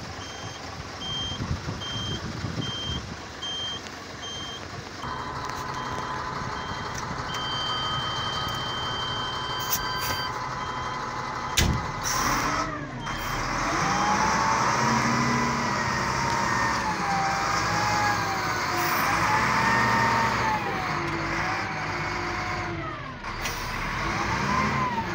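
Wheel loader heard from inside its cab: a warning alarm beeps at about two beeps a second over the running diesel engine, which picks up about five seconds in. From about halfway a whine rises and falls again and again as the operator works the joystick and the lift arms raise the bucket.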